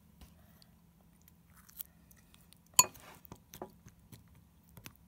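Handling noise around a bowl of food: scattered small clicks and taps, with one sharp clink about three seconds in, over a faint steady low hum.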